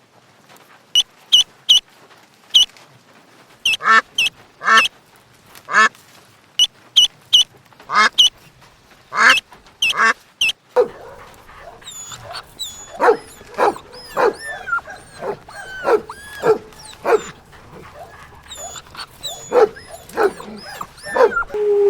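An animal calling over and over in short, sharp calls. From about eleven seconds in, the calls are lower and slide in pitch.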